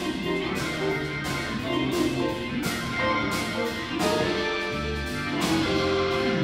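Live blues band playing a swing number: electric guitars, bass guitar and keyboard over a drum kit, with cymbal strokes about twice a second.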